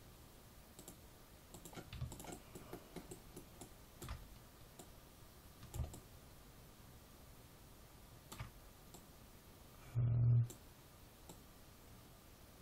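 Computer mouse and keyboard clicks, sparse and irregular, as software is operated. About ten seconds in there is one brief, louder low sound.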